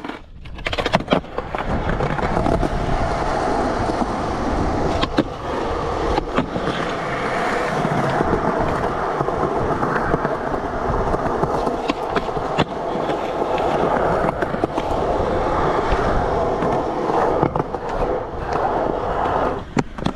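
Skateboard wheels rolling over smooth concrete with a steady rumble, and now and then a sharp clack from the board.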